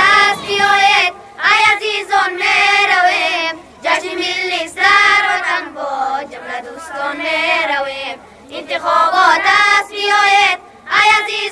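A group of boys singing together in unison into microphones. The song comes in phrases of two to three seconds, with short breaks between them.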